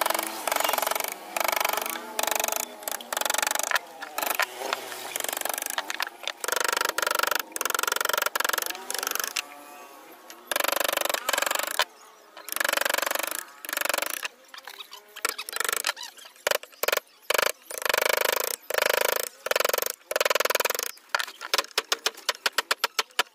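A steel claw hammer striking the end of a wood-carving chisel: a series of ringing blows as the chisel cuts into the wooden panel, coming quickly, several a second, near the end.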